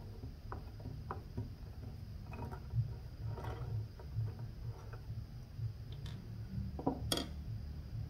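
Light clicks and taps of small metal parts as a glass-scale DRO encoder's reading head is opened and handled by hand after its two Torx screws are loosened, with a sharper click about seven seconds in. A low steady hum runs underneath.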